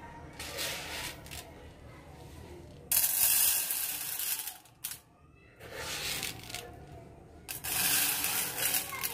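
Dry red lentils poured by the handful into an aluminium pot, the grains rattling and hissing on the metal bottom. There are two main pours, about three seconds in and near the end.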